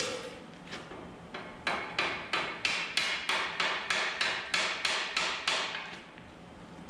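Hammer blows on steel, each with a short metallic ring: a few scattered strikes, then a steady run of about three a second, then a pause near the end, as a pin is driven into a loader joint to line up the bolt hole.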